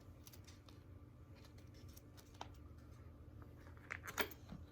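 Faint handling noise of small soldering kit parts and their packaging: light scattered clicks and rustles, with a few sharper clicks about four seconds in.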